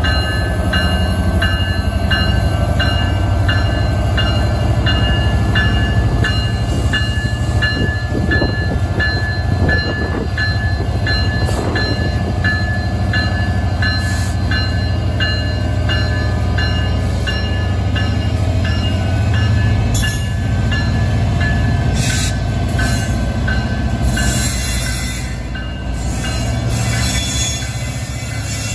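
Union Pacific SD70ACe diesel-electric locomotive's EMD 710 V16 two-stroke engine running hard as the locomotive revs up to pull a train away, with a deep, steady rumble. A bell rings steadily over it and stops about two-thirds of the way through.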